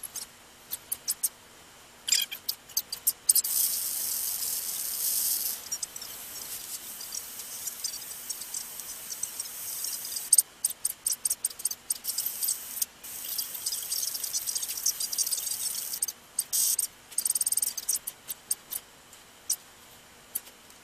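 Hiss and crackle of static from a handheld transceiver's speaker, cutting in and out many times with some longer steady stretches, as the radio is worked.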